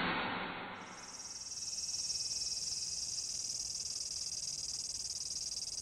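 Cicada buzzing: a steady, shrill, high drone with a fine rapid pulse that starts about a second in as the sound before it fades away.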